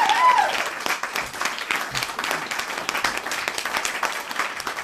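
Applause, with a few voices cheering over its first half-second; the clapping thins out gradually and stops just after the end.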